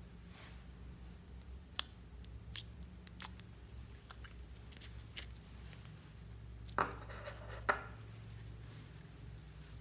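Clear slime being squeezed and peeled by hand out of a plastic tray: scattered soft sticky clicks and pops, with two louder squelches about a second apart a little past the middle, over a steady low hum.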